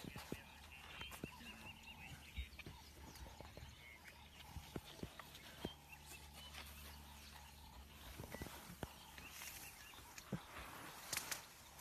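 Faint, steady low hum of an idling safari vehicle's engine, with scattered light clicks and knocks throughout and a few short bird chirps about a second in.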